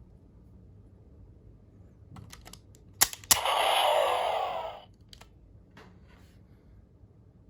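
Plastic clicks from a Shining Assault Hopper Progrise Key toy being handled. About three seconds in come two sharp clicks, then a hissing electronic sound effect from the toy's speaker that lasts about a second and a half and fades out. A few lighter clicks follow.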